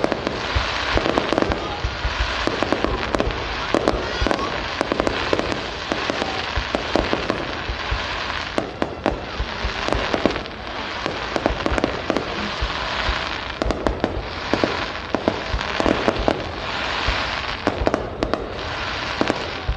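Fireworks display: a dense, continuous barrage of shell bursts and crackling, with sharp bangs coming several times a second.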